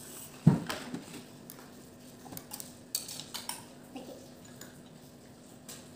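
Handling a small salt jar over a plastic mixing bowl and glass tabletop: one heavier knock about half a second in, then scattered light clicks and clinks.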